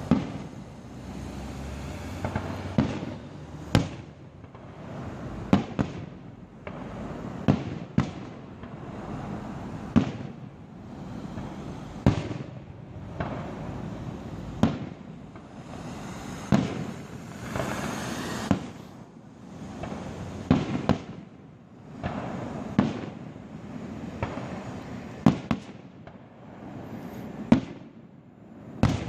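Fireworks display: aerial shells bursting in a steady series of sharp bangs, about one every one to two seconds, with a continuous noise between the bangs.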